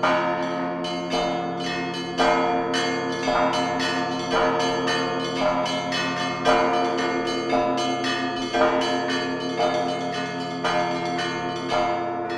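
Church bells ringing a peal (perezvon): many bells struck one after another, a loud strike about once a second with lighter strikes between, over the lingering hum of the larger bells.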